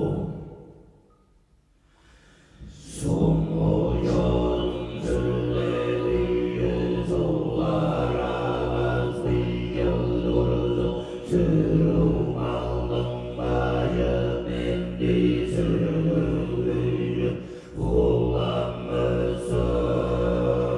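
Tuvan throat singing from several male voices over a low drone, with a bowed two-string igil fiddle and light percussion. The music drops almost to silence just after the start and comes back in about three seconds in.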